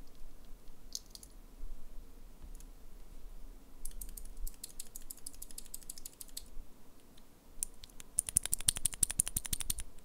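An Outemu Blue clicky mechanical keyboard switch, with a keycap on it and held in the fingers, pressed over and over: a few clicks about a second in, a quick run of sharp clicks from about four seconds, and a faster, louder run near the end.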